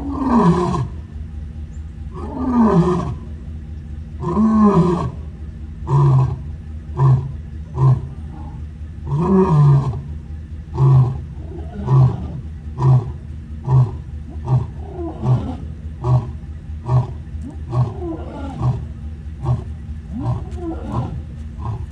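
Male African lion roaring: a few long, deep moaning roars, then a run of short grunts about one a second that grow shorter and fainter toward the end.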